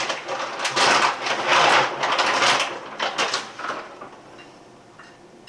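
Rustling and scraping, loudest for about two seconds, then a few light clicks, as bacon is put onto a casserole.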